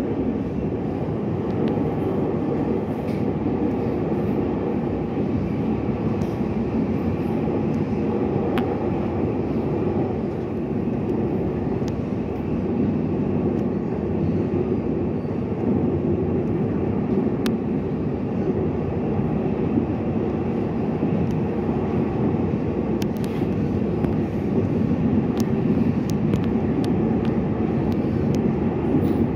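Steady running noise inside a Taiwan Railways EMU800 electric multiple unit at speed: wheels on the rails and the train's own running gear make an even rumble, with a few faint clicks.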